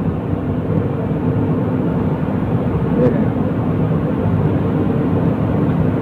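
Steady droning hum of running machinery, level throughout, with a steady pitched tone under a noisy rush.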